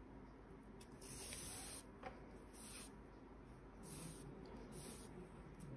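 Cotton cord (3 mm) sliding and rubbing through crochet stitches as it is pulled, four soft swishes with a light tick or two of the metal hook.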